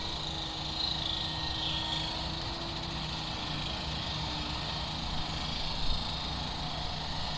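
Steady noise of interstate highway traffic, a low rumble under a broad hiss, with a faint droning tone that fades out about halfway through.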